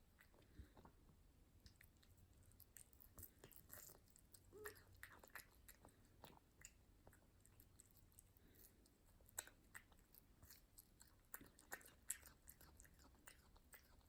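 A cat eating soft wet food, a salmon mousse in gravy: faint, irregular chewing clicks from a noisy eater.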